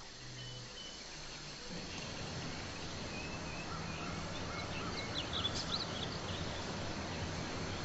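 Quiet outdoor ambience with faint, scattered bird chirps and a short flurry of quick calls about five seconds in.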